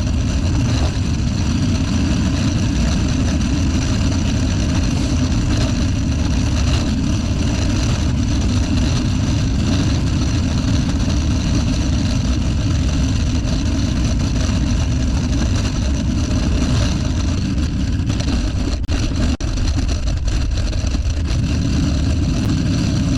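A vehicle on the move: steady, loud engine and road noise, heaviest in the low end, with a brief dip near the end.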